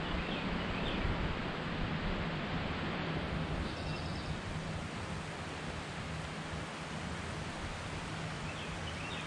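Steady outdoor background hiss with light rustling, and a faint high chirping trill about four seconds in.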